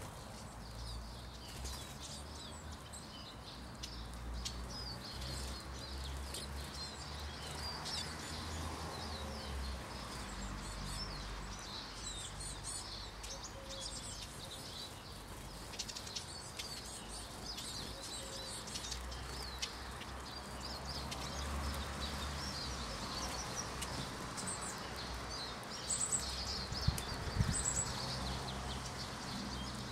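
A feeding flock of Eurasian siskins twittering, with many short high chirps throughout and wings fluttering as birds come and go. A few louder notes near the end.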